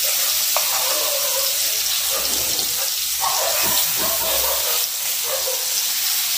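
Marinated fish pieces sizzling steadily in hot oil on a flat iron tawa.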